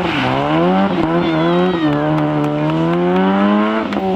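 Peugeot 206 rally car engine accelerating hard away. Its pitch climbs, drops at upshifts about a second in and again near two seconds, then rises steadily through the next gear.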